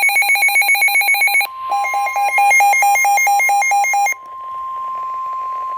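NOAA Weather Radio alert tones: a rapidly pulsing electronic alarm beep, then a warbling alarm pattern laid over the steady 1050 Hz weather-radio warning tone, which carries on alone from about four seconds in.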